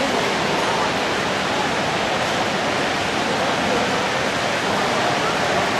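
Steady, even rushing din of a crowded train-show hall.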